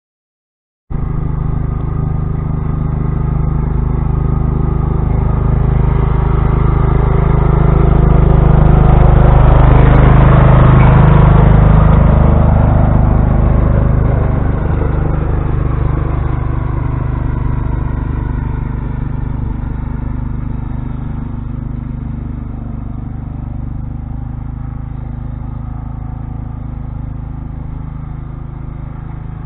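Old Sears Craftsman lawn tractor's engine running while plowing snow. It cuts in abruptly about a second in, grows louder to a peak as the tractor passes close by, then fades steadily as it drives away.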